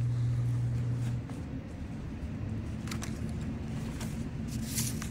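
A low steady background hum, which drops to a quieter hum about a second in, with a few soft rustles of paper journal pages being handled and turned.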